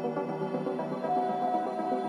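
Background music of layered, held tones; a higher note comes in about a second in and is held.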